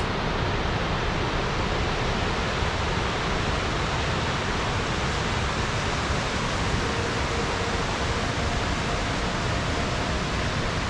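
Mountain creek's whitewater cascade rushing over boulders: a steady, even rush of water.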